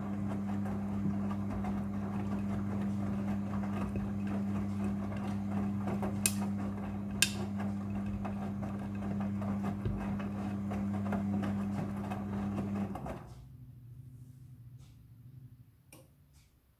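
Midea front-loading washing machine tumbling a load: a steady motor hum with swishing from the drum and two sharp clicks in the middle. About 13 seconds in the motor stops and the drum winds down, falling much quieter, a pause of the kind a front-loader makes before turning the drum the other way.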